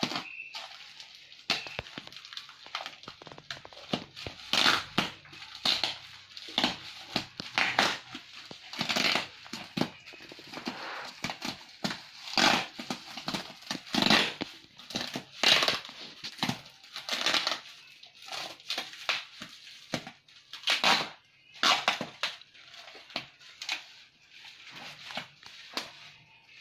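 Plastic bubble wrap and packing tape crinkling and crackling as a heavily taped parcel is pulled open by hand, in many short, irregular bursts.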